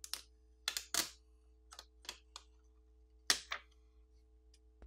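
Thin adhesive plastic overlay film being peeled off a phone's inner plastic housing: a scatter of short crackles and ticks, the loudest about three seconds in.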